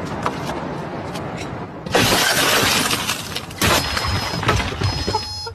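Glass shattering in a loud crash about two seconds in, with a second crash of breaking glass a moment later.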